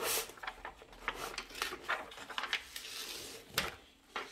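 Rustling of a diamond painting canvas and its protective cover sheet as they are folded back and smoothed flat by hand, loudest at the very start, with a sharp tap about three and a half seconds in.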